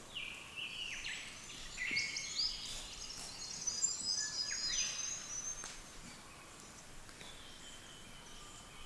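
Several wild birds calling in the early-morning chorus: short falling calls and a burst of high, busy twittering through the first half, then a long steady high note near the end.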